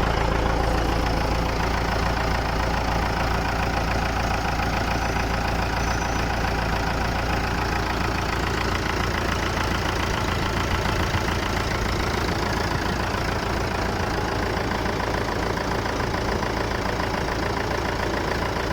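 Massey Ferguson 290 tractor's Perkins diesel engine running steadily, freshly repaired and started.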